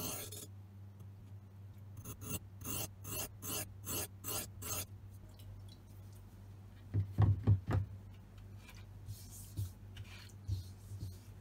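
A karambit blade of brake-rotor steel stroked across a whetstone: about eight even scraping strokes, roughly three a second. About seven seconds in, a few dull knocks as a whetstone is set into its wooden holder, then a few fainter strokes.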